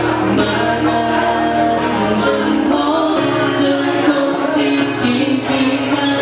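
A song playing: voices sung over a steady instrumental backing with a sustained bass.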